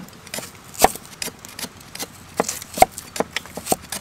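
Knife cutting small peeled red onions into quarters on a thick wooden chopping board: sharp, uneven knocks as the blade goes through and strikes the wood, about eight of them with short pauses between.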